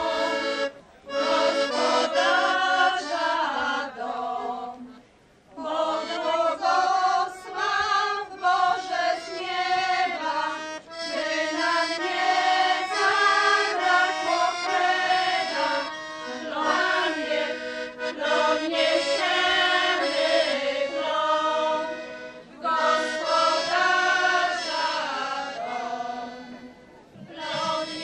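Women's folk group singing a traditional harvest-festival song (przyśpiewki dożynkowe) with accordion accompaniment, in long held phrases with brief pauses between them.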